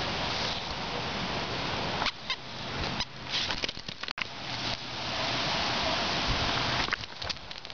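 Dog mouthing and shaking a plush toy, with a few short high squeaks and soft clicks, over a steady rushing noise.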